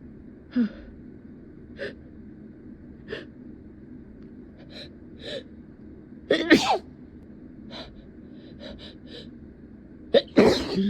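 A person's short, sharp in-breaths as a sneeze builds, then a loud sneeze about six and a half seconds in and another near the end.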